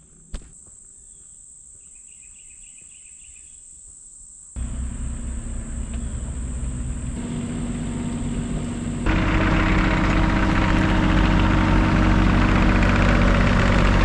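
Insects trilling steadily, then an excavator engine running from about four and a half seconds in, getting louder and steadier with a clear engine hum about nine seconds in.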